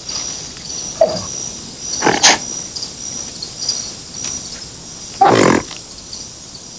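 A few short, loud wild-animal calls, grunts and cries, about a second in, a little after two seconds and just after five seconds. Behind them runs a steady, pulsing high chirping of insects.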